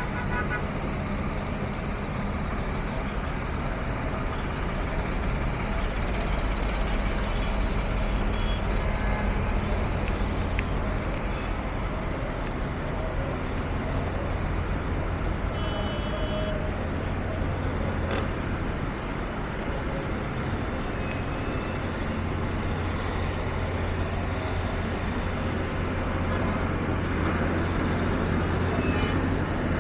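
Busy road traffic with heavy vehicles: a steady low engine rumble under the noise of passing traffic, with a short high beep about halfway through.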